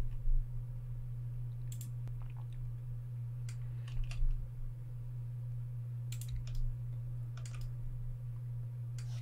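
Scattered, irregular clicks of a computer keyboard and mouse over a steady low hum.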